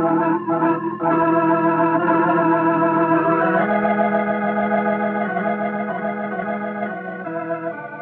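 Background organ music: held chords that change a couple of times and fade near the end.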